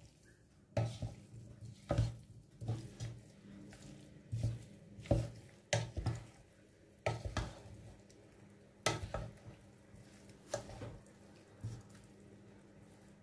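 Wooden spoon stirring pasta with crumbled cheese and sausage in a nonstick pot, scraping and knocking against the pot's sides and bottom in irregular strokes, about one or two a second.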